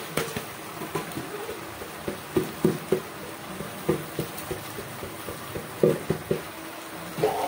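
Soaked rice poured and shaken out of a plastic container into an aluminium pot: a run of soft, irregular knocks and patters as the wet rice drops in and the container is tapped.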